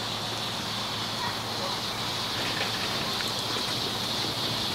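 7¼-inch gauge miniature steam locomotive hauling a passenger train, a steady hiss of steam over the running of the train, growing slightly louder as it approaches.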